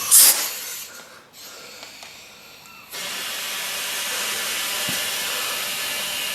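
Compressed air hissing from an air line: a short loud blast at the start, then about three seconds in a steady hiss begins as the dirt bike's new rear tyre is inflated.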